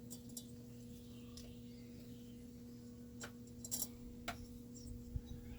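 Steady low hum with a few faint, sharp clicks about three to four seconds in, from small metal parts being handled while head bolts are started into a chainsaw cylinder.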